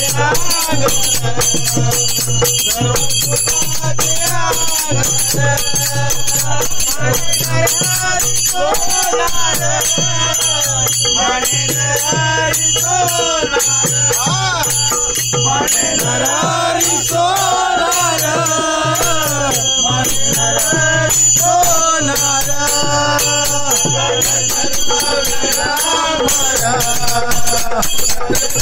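Men's voices singing a Marathi devotional abhang, with small brass hand cymbals (taal) clashing steadily in rhythm.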